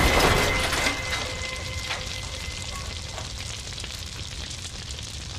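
An explosion's rumble dying away over about a second into a steady crackle like a fire burning, with a couple of sharper cracks.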